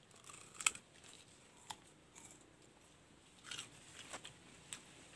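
Biting and chewing a crisp rose apple (wax apple): a few faint, short crunches spread irregularly.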